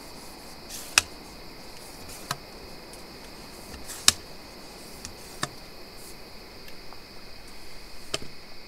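Sharp metallic clicks from a tripod being collapsed, its leg locks snapping, about five times at uneven intervals, with a soft rustle near the end. A steady high insect chirring runs underneath.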